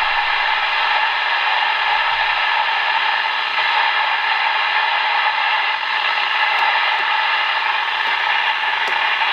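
RadioShack 12-253 weather radio hissing steady static from its speaker: the station is coming in weakly, so poor reception leaves mostly noise.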